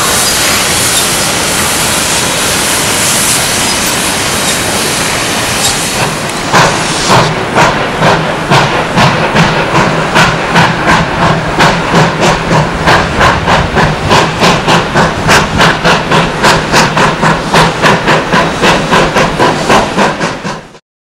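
Narrow-gauge steam locomotive venting steam with a steady loud hiss, then its exhaust chuffing in a quick even rhythm of about three beats a second as it works along. The sound cuts off abruptly near the end.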